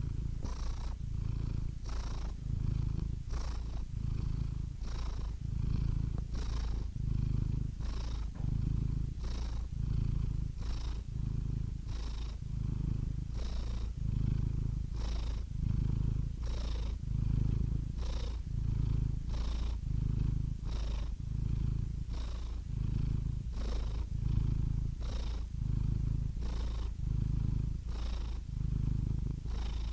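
Domestic cat purring steadily and close up, the low rumble swelling and easing in a regular rhythm with each breath in and out, about once every second and a half.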